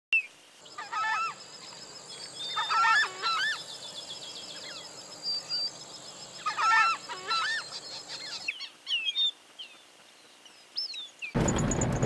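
A flock of white-winged coots calling, with bursts of honking calls about a second in, around three seconds and near seven seconds, and thinner high chirps between them. Near the end, loud road noise from a moving vehicle cuts in.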